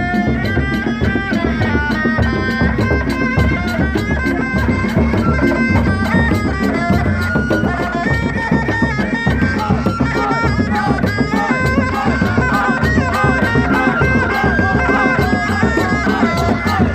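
Sundanese reak ensemble playing: dogdog frame drums and other drums beat a dense, driving rhythm under a high, stepping melody from a reed pipe (tarompet). The music plays continuously at a steady loudness.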